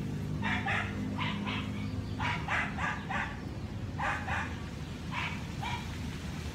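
An animal barking repeatedly: about a dozen short, sharp barks in quick pairs and runs of three or four, over a low steady hum.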